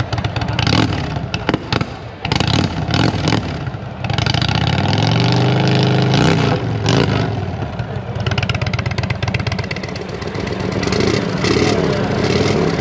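Indian V-twin cruiser motorcycle with a Jekill & Hyde valved aftermarket exhaust, revved in a few quick blips, then held in a longer rev that rises and falls before settling back to a steady run. Jekill & Hyde exhausts are built to be switched electronically between a quiet mode and a loud one.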